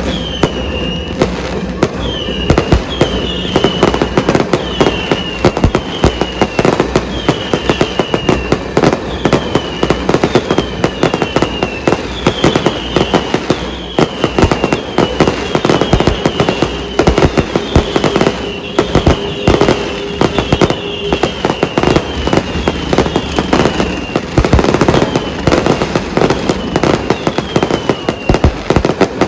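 Fireworks display: a continuous barrage of bangs and crackling, with short high falling whistles repeating about once a second.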